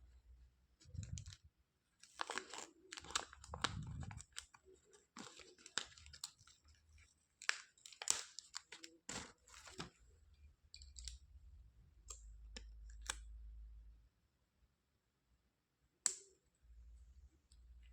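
Hands handling plastic toys: scattered clicks, taps and rustling, busy for the first ten seconds or so, then sparse, with one sharp click about sixteen seconds in.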